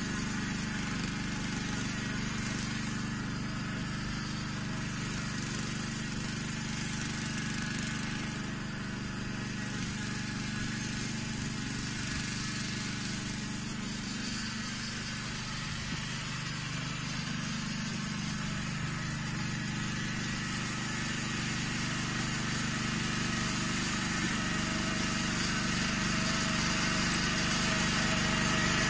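Engine of a Yağmur YET 300 two-wheel walking tractor (patpat) running steadily, getting louder over the last few seconds.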